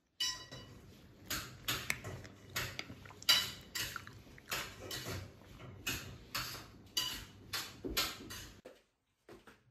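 A metal spoon stirring strawberries and cream in a glass bowl. There is a ringing clink against the glass at the start, then a steady run of scrapes and taps on the glass, about two a second, which stop near the end.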